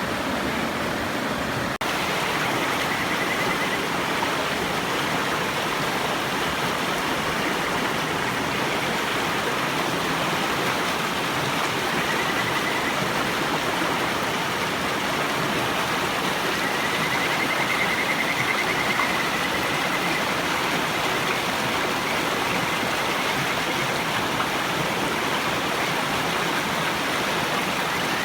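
A river runs steadily. Over it a Kajika frog (Buergeria buergeri) sings faint, warbling trills several times, the longest about two-thirds of the way in. There is one sharp click about two seconds in.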